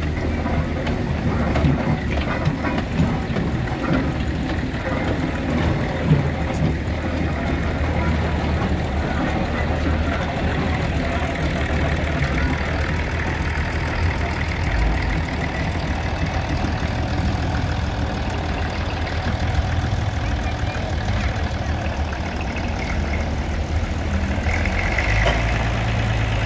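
Vintage vehicle engines running: a steam traction engine moves off while a low engine hum runs underneath. Near the end, a vintage tractor's engine comes in louder close by. Crowd chatter runs in the background.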